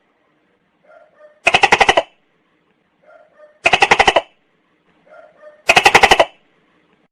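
Tokay gecko calling: three loud calls about two seconds apart, each a rapid run of pulses lasting about half a second and led by a couple of faint short notes.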